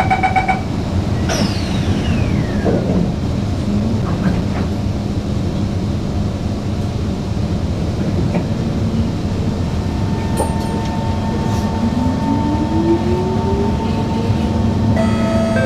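Singapore MRT train's door-closing beeps finishing, then the train setting off with a steady running hum. From about twelve seconds in, the traction motors' whine rises steadily in pitch as it picks up speed. An onboard chime starts near the end.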